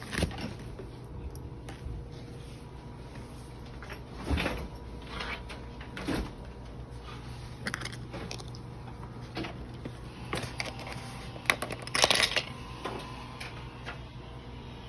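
Scattered clicks, taps and knocks of small objects being handled, the loudest cluster about twelve seconds in, over a steady low hum.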